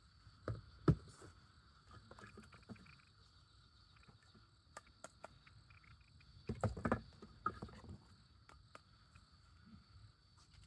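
Insects, likely crickets, chirping steadily, with scattered knocks and clicks: two louder knocks about half a second to a second in and a cluster of knocks around seven seconds in.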